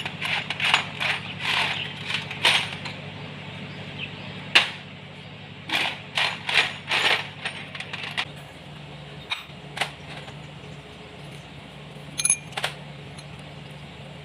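Irregular metallic clinks and taps of tools and metal engine parts being handled, busiest in the first half and only a few near the end, over a steady low hum.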